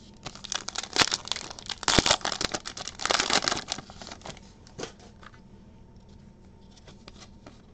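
Foil wrapper of a Panini Prestige basketball card pack crinkling and tearing as it is ripped open, in several loud bursts over the first four seconds. After that come only faint rustles as the cards are handled.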